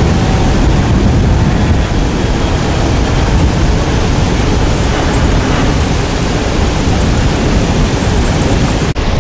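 Steady, loud rumble of wind buffeting the microphone, mixed with the wash of ocean surf; the sound drops out for an instant near the end.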